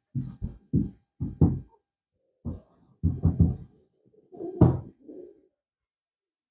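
Writing on a board: a run of short taps and knocks in uneven groups, several in quick succession, then a pause of about a second, then more.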